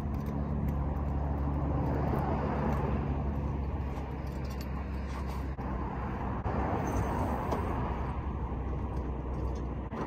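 A car engine running with a steady low hum, which eases off about four seconds in, over a continuous noisy rumble.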